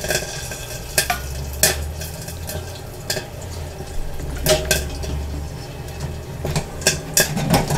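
Popcorn kernels popping sporadically in the stainless kettle of an Olde Midway tabletop popcorn machine, about ten sharp pops at irregular intervals, roughly one a second, over a low steady hum from the machine. This is the early stage of a batch, just after the kettle reaches popping heat, before the pops run together.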